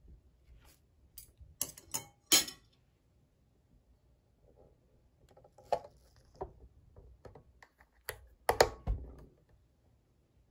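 Metal chopsticks clicking against a waffle maker's cooking plates, then plastic clicks and a louder clunk about 8.5 seconds in as the appliance's lid is shut and clipped closed.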